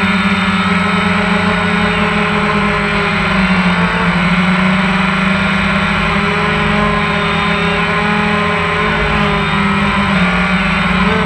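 Quadcopter motors and propellers of a DJI Phantom 1 buzzing steadily in flight, heard from the camera mounted on the drone, with a few slight changes in motor pitch and wind rumbling on the microphone.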